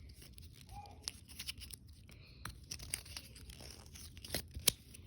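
Paw pop-it bracelet being pressed, its bubbles popping in a string of small irregular clicks, the two sharpest near the end.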